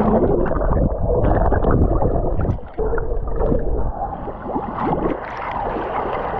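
Swimming heard through a camera held underwater in a pool: muffled churning and bubbling of strokes and air. A few seconds in, the camera comes up at the surface and the water sounds turn brighter, with splashing and dripping.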